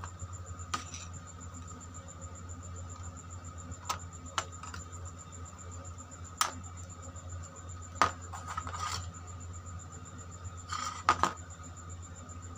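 Scattered sharp clicks and taps of a screwdriver and wires against a plastic switch-and-socket plate as its terminal screws are tightened, with a quick pair of clicks near the end, over a steady low hum.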